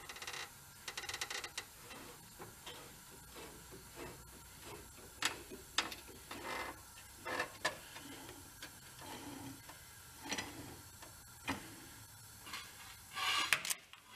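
Irregular clicks, ticks and metallic creaks as a screw-type jack post is wound up, its pad pressing into a rusty truck cross member to push it straight. A louder run of scraping comes near the end.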